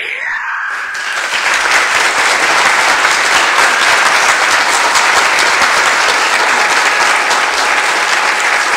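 Large theater audience applauding, swelling over the first second or so into loud, dense clapping that holds steady.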